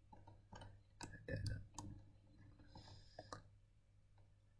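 A few quiet computer mouse clicks, spaced irregularly, as faces of the model are selected in the CAD program.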